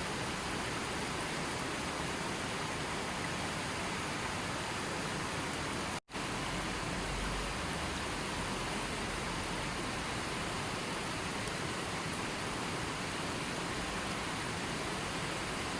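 Steady rushing water noise, even and unbroken, with no distinct splashes or drops. It cuts out completely for an instant about six seconds in, as at an edit, then carries on the same.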